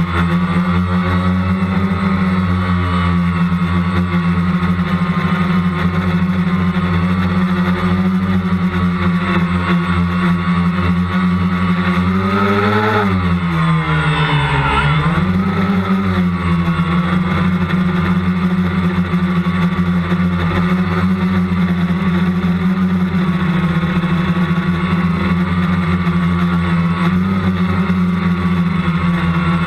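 Multicopter's electric motors and propellers, heard from the onboard camera as a loud, steady hum. About halfway through, the pitch briefly rises, then dips, then settles back as the throttle changes.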